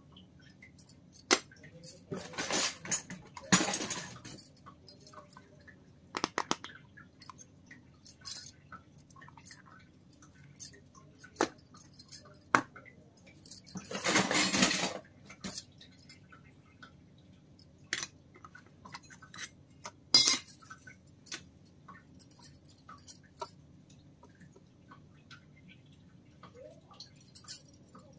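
Miniature stainless-steel toy kitchen utensils (tiny plates, lids and pots) being handled and set down on a wooden table: scattered light metal clinks and taps, with a few longer clattering spells.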